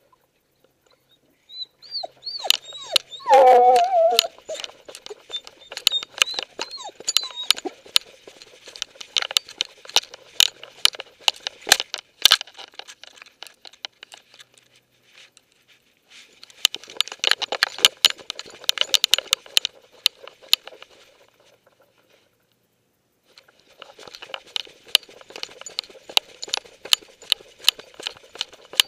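Dog-worn camera rustling and crackling with rapid clicks as the dog moves through plants and grass, in three stretches with short pauses between. Near the start a brief falling whine from the dog is the loudest sound.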